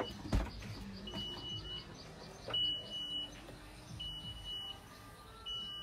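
A vehicle's warning beeper in a Toyota Alphard sounds a steady high beep about every second and a half, four times. There is a sharp thump about half a second in.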